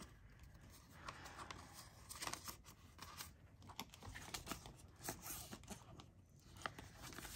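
Faint rustling and crinkling of paper banknotes being handled and slid into the clear plastic zip pocket of a ring binder, with scattered light clicks.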